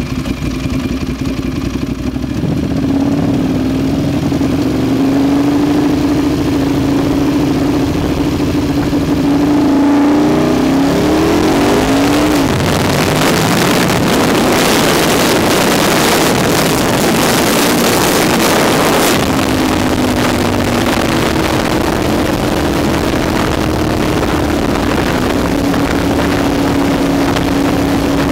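Ducati 1098 sportbike's L-twin engine running at highway speed, its note rising as it accelerates about ten to twelve seconds in. Heavy wind rush over the microphone then largely covers the engine for several seconds before its steady drone comes back through.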